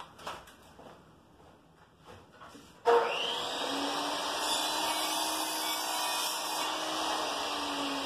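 A few light knocks, then about three seconds in a power tool starts abruptly and runs steadily with a hum and a hissing whine.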